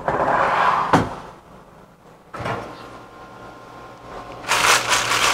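Knocks and clatter of a metal cabinet being handled, a sharp one about a second in and another about two and a half seconds in. From about four and a half seconds in, a plastic padded mailer crinkles loudly as it is pulled out.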